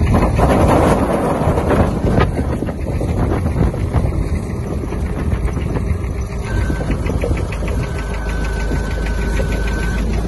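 Tractor-drawn Hassia potato harvester at work: the tractor engine runs steadily under the rattle and clatter of the harvester's chains and elevator as potatoes drop off the conveyor into a trailer. A faint high whine joins about two-thirds of the way through.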